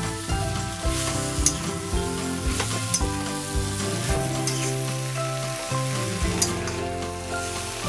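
Water spinach and tofu stir-frying in a hot pan: steady sizzling, with a metal spatula scraping and clicking against the pan at irregular moments as the vegetables are turned.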